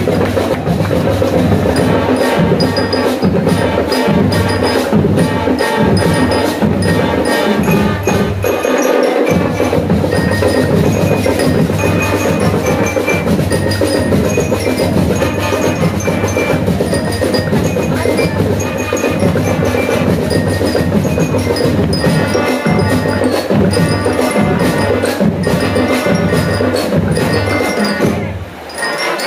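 School marching band playing: bell lyres ringing a melody over brass and a steady, even drum beat. The sound briefly drops near the end.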